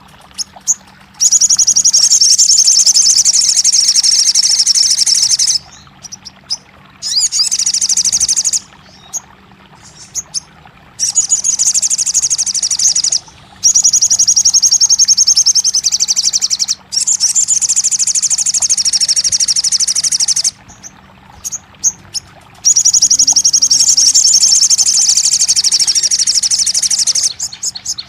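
Sogon (crimson sunbird) song: long, rapid, high-pitched trilling phrases of a few seconds each, six in all, separated by short pauses. It is a therapy recording meant to coax a caged sogon that has stopped singing into answering. A faint steady low hum lies underneath.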